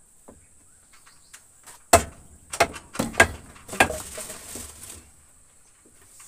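A quick, irregular run of about five sharp knocks, typical of hammering or chopping during work on a wooden hut, followed briefly by a scraping rustle. Insects buzz steadily underneath.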